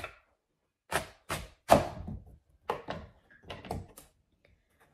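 A kitchen knife cutting through a peeled potato and knocking on a wooden cutting board: about eight short knocks at an uneven pace, the loudest a little under two seconds in.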